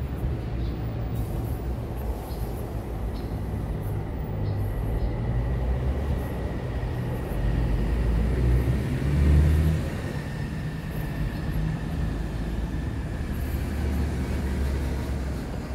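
Steady low rumble of a moving vehicle, with a faint high whine that slides slightly lower in pitch around the middle.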